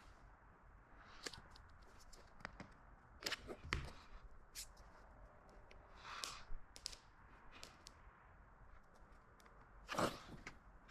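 Faint handling of a flimsy glued template and materials on a workbench: scattered light taps and rustles, with a louder knock about ten seconds in.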